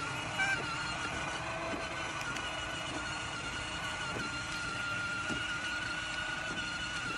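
Electric ride-on go-kart's motor whining steadily at a near-constant pitch, over the rumble of its plastic wheels rolling on a concrete sidewalk.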